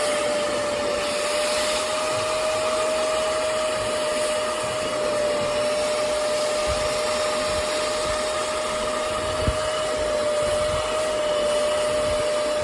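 Hoover CleanSlate portable carpet spot cleaner running: a steady motor whine over a constant suction hiss, cutting off suddenly at the very end.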